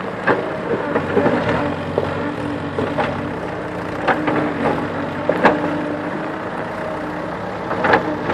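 JCB backhoe loader's diesel engine running steadily under digging load, with scattered sharp knocks and crunches of rocks and gravel as the bucket works the stony ground.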